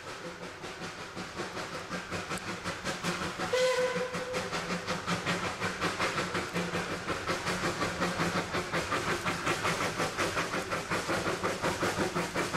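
Narrow-gauge NA class 2-6-2T steam locomotive 8A working hard up a grade, its exhaust beats coming in a quick, even rhythm and growing louder as it approaches. A short whistle blast sounds about three and a half seconds in.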